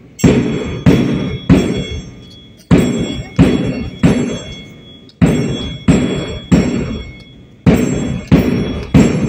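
Drum beats in groups of three, each strike sudden and ringing out, with a pause after each group: a steady marching beat, four groups in all.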